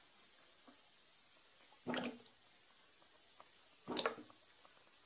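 S-shaped bubble airlock on a fermenting session IPA burping twice, about two seconds apart: short watery gurgles as carbon dioxide pushes through the water, the sign of vigorous fermentation.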